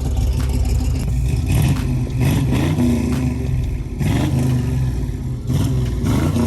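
Vehicle engine running and revved several times, its pitch rising and falling in swells about two seconds apart.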